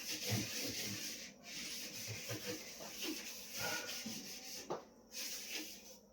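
Scotch-Brite scouring pad scrubbing a fridge surface with baking soda and lemon, a steady rasping rub with short breaks about a second in and near five seconds.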